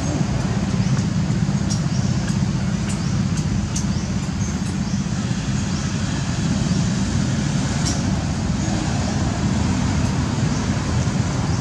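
Steady low rumbling outdoor background noise, with a few faint high clicks and short chirps scattered through it.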